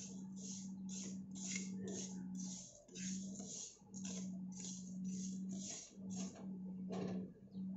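Metal spoon stirring dry-roasting moong dal in a pan, the grains scraping and rustling over the metal in strokes about twice a second; the stirring stops a little after six seconds in, with one more stroke near the end. The dal is almost roasted.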